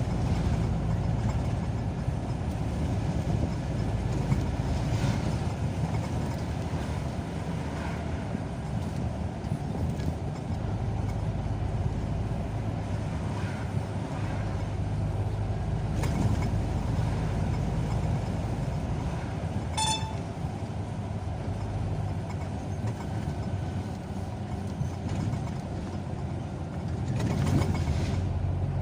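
Steady engine and road noise of a moving vehicle, heard from inside the cabin, with a short high beep about twenty seconds in.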